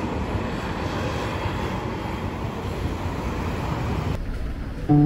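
Road traffic: a steady wash of passing vehicles on a multi-lane city road, with a van going by close. It cuts off about four seconds in.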